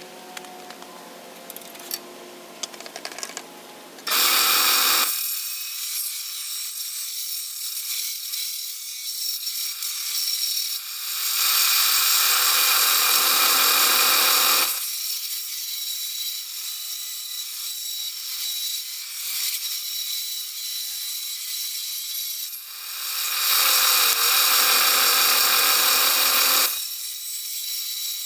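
Power woodworking tool machining a rough white oak board. It starts about four seconds in after a few quieter seconds of small clicks, and gets louder three times as the cut bears in, easing off in between.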